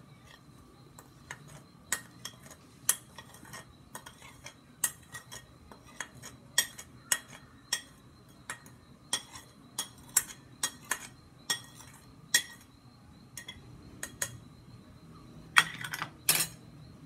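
Metal spoon clinking and scraping against a ceramic plate in irregular sharp clicks, as powdered ingredients are scraped off into a bowl. A louder clatter of plate and spoon comes near the end.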